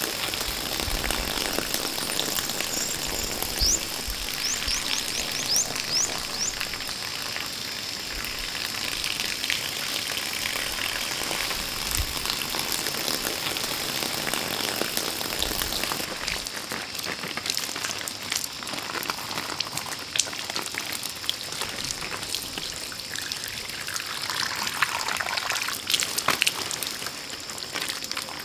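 Water pouring from a bamboo pipe and splashing onto skin and rocks: a steady rushing splash with scattered spatters, the low rumble dropping away about halfway through.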